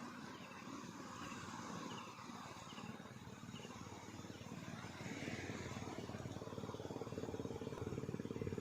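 An engine running with a fast pulsing beat and a steady hum, growing louder over the last few seconds as it comes closer.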